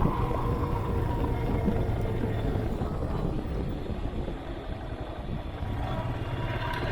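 Royal Enfield Himalayan's 411 cc single-cylinder engine running steadily at cruise, with wind noise on the action camera's microphone.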